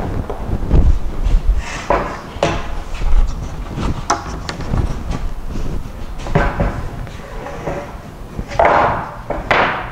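A long pine board being handled on a wooden workbench: irregular knocks and bumps as it is lifted, turned over and set down, with two louder scraping slides near the end.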